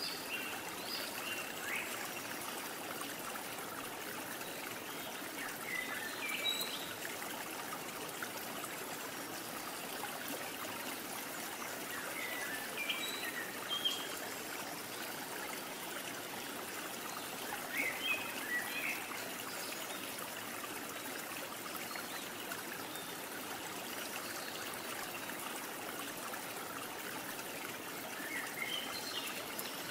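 Steady trickling stream of running water, with a few short high chirps now and then.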